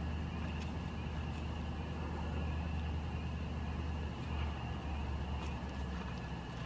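A steady low, engine-like hum with no change in level, with a few faint, sharp crackles from a small wood campfire being fed sticks.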